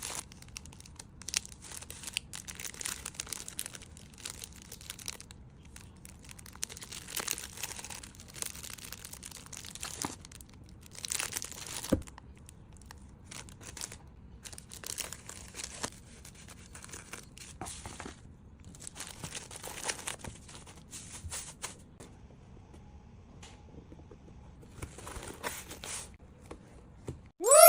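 Intermittent rustling, crinkling and light scraping from hands and small tools working polymer clay, in short irregular bursts with quiet gaps and the odd sharp tick.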